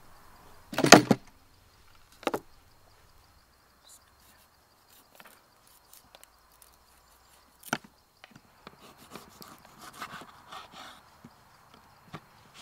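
A few sharp knocks, the loudest about a second in and a second just after two seconds, then a lone click and a run of lighter clicks and rustling near the end.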